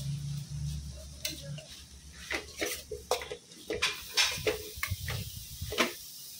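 Steel spoon scraping and clinking against a stainless-steel kadai while stirring onions and anchovies frying in oil, in irregular strokes several a second; the sharpest clinks come about four seconds in and near the end.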